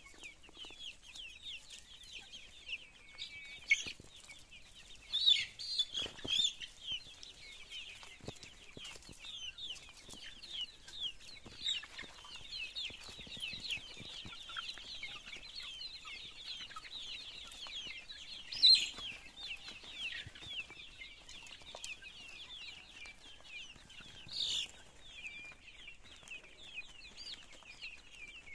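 A flock of young Kadaknath and local chickens peeping continuously, many high, short, falling chirps overlapping, with a few louder calls now and then.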